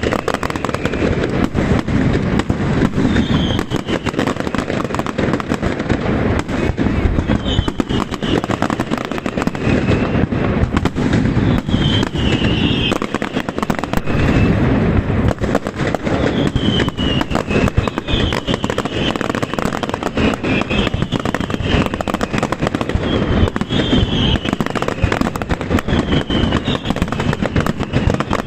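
Fireworks display going off continuously: dense crackling and rapid bangs with no let-up, with short falling whistles cutting through again and again.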